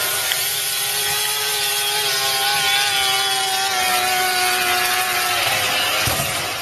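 Snowmobile engine running at high revs, a steady high whine that drifts slightly lower in pitch and fades out near the end.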